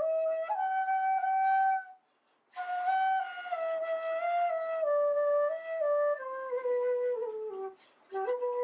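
Solo flute melody as background music: a single line of held notes that breaks off briefly about two seconds in, then comes back and falls slowly in steps.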